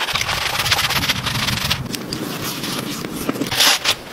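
A brush scrubbing back and forth along a wooden beam: a fast, scratchy rubbing that eases off after about two seconds, with a brief louder rustle near the end.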